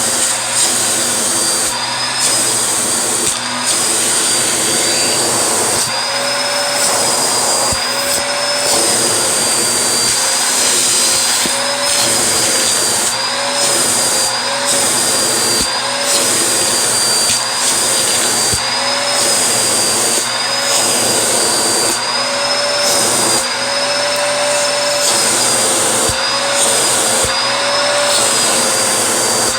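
Vacuum cleaner running steadily, its motor whine wavering slightly in pitch, with the airflow hiss dipping and returning every second or two.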